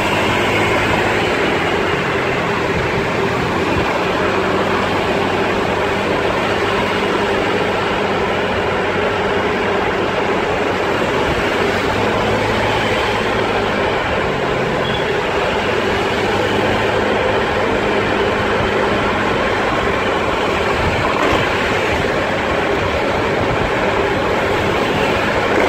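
Steady engine and road noise from a moving vehicle travelling along a city street, an even drone with a low engine hum under it.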